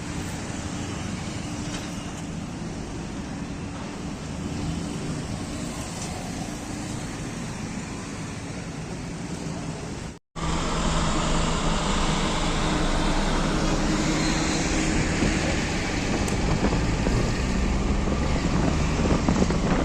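Road traffic: a steady hum of passing vehicles and running engines. It breaks off briefly about halfway through and comes back louder.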